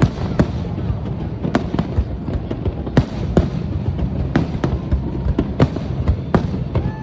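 Aerial fireworks bursting: an irregular run of sharp bangs, about two a second, over a continuous low rumble of further explosions.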